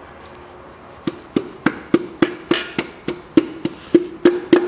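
Piston being tapped down through a ring compressor into a cylinder bore of a Toyota 3S-FE engine block with the butt of a rubber-gripped hammer handle. There are about three taps a second starting about a second in, each with a short ringing tone, as the rings are driven from the compressor into the bore.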